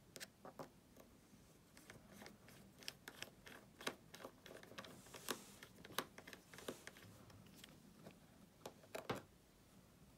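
Faint, irregular small clicks and ticks from a precision screwdriver turning the tiny pentalobe screws at the bottom edge of an iPhone 6s, metal bit on screw heads and aluminium case.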